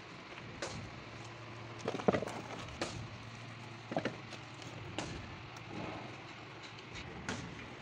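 Low steady hum with scattered sharp clicks and knocks, about six in all, the loudest about two seconds in.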